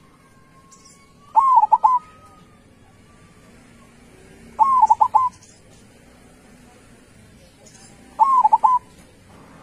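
Zebra dove (perkutut) cooing: three short song phrases about three and a half seconds apart, each a quick run of a few rolling notes. Faint chirps of other birds sound behind it.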